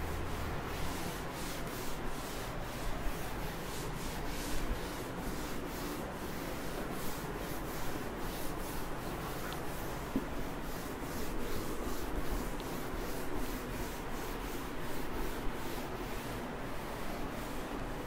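Cloth duster rubbing across a chalkboard in repeated wiping strokes, erasing chalk writing.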